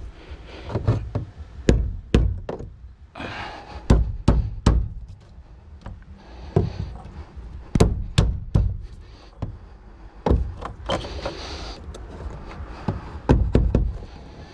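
Irregular knocks, clunks and short scrapes of hard parts being handled as a spring-loaded fuel pump/sending unit assembly is pushed down into a car's fuel tank and worked into its seat. The spring keeps pushing the assembly back up.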